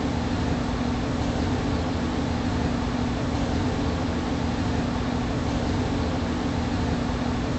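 Steady hum and hiss with one constant low tone, unchanging throughout.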